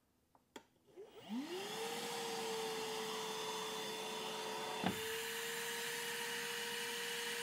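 Milwaukee Packout battery-powered wet/dry vacuum switched on at its high setting: the motor whines up in pitch over about a second, then runs steadily with a rush of air. Just before five seconds in there is a single knock as the Air-Tip dust collector nozzle seals against the drywall under suction, and the air rush changes slightly after it.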